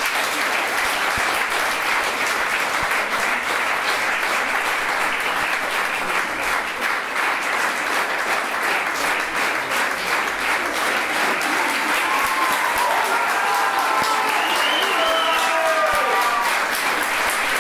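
Audience applauding, with a few cheers rising over the clapping from about twelve seconds in.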